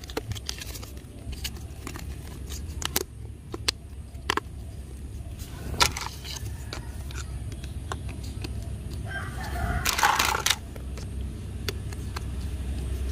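Hard plastic toy train track pieces clicking and knocking as they are handled and fitted together, a few sharp clicks spread through. About nine seconds in, a rooster crows once, louder than the clicks.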